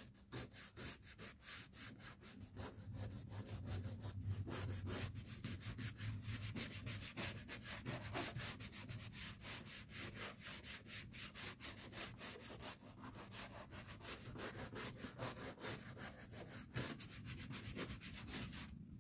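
Toothbrush bristles scrubbing a wet leather chair seat in quick, even back-and-forth strokes, several a second, working loose sticky tape-glue residue.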